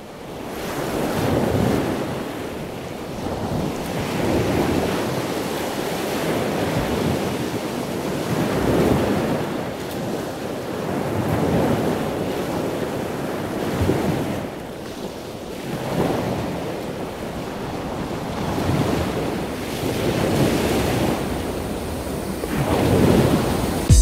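Sea waves washing onto the shore, a steady rush that swells and falls every few seconds.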